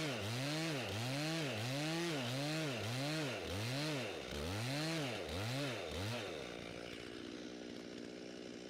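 Gas chainsaw bucking a pine log, its engine pitch rising and falling over and over as it works through the cut, then dropping to a steady idle about six and a half seconds in.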